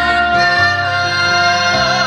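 A woman sings a long held note into a microphone over instrumental accompaniment, and the note changes near the end.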